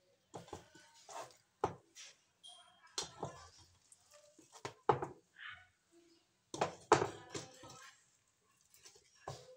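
Handfuls of cooked glutinous rice scooped by hand from an aluminium pot and dropped into a wok, with irregular thuds and knocks of hand and rice against the metal.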